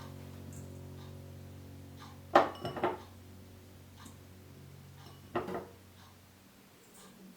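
Kitchenware clattering on a work surface: a cluster of quick knocks about two and a half seconds in, the loudest sound, and a shorter clatter about three seconds later.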